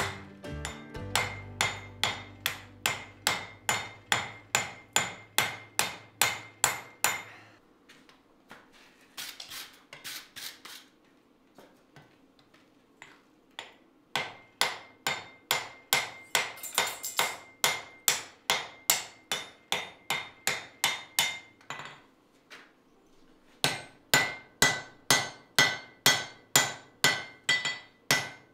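Hand hammer striking red-hot steel on an anvil in quick, steady blows, about three a second, the anvil ringing with each strike, while forging an axe head. The blows come in three runs broken by pauses of a few seconds.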